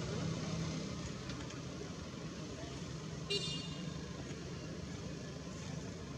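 Steady low rumble of road traffic or idling engines, with one short high-pitched squeak a little past the middle.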